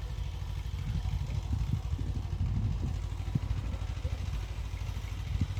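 Diesel engine of a Xingtai 220 compact tractor running steadily, with a few short knocks and clatter over its low, even drone.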